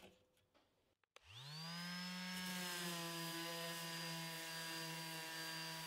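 Electric orbital sheet sander starting up about a second in, its motor whine rising quickly to a steady running pitch, with the hiss of the pad sanding paint off a steel case. A faint clatter of a small meter being set down comes just before.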